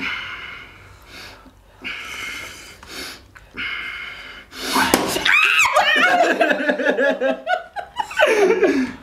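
Three short, sharp hissing breaths drawn through the teeth, as from a stinging slap to the palm, then loud laughter from about halfway through.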